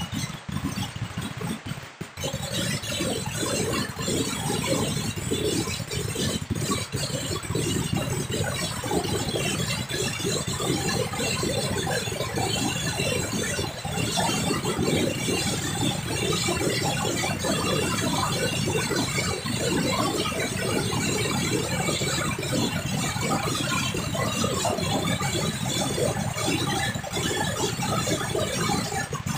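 A long string of Chinese firecrackers going off in a continuous, rapid crackle of bangs, with a short lull about two seconds in.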